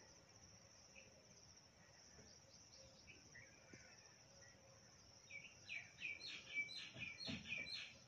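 Steady high trilling of insects, then, about five seconds in, a quick run of about seven loud chirping calls from a common myna that lasts to the end.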